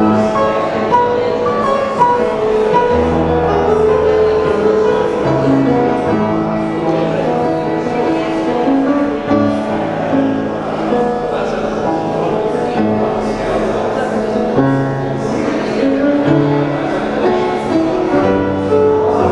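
Solo grand piano playing a slow piece, one note struck after another and left to ring.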